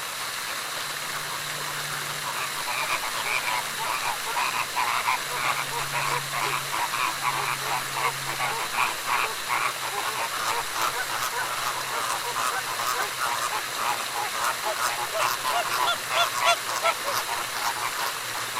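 A flock of flamingos calling: a dense, continuous chorus of many overlapping short honking, cackling calls.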